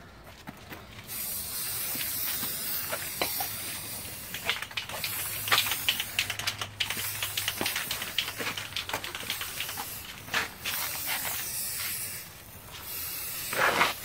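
Aerosol spray paint can hissing as paint is sprayed in long sprays, starting about a second in, with short breaks near the end and scattered small clicks.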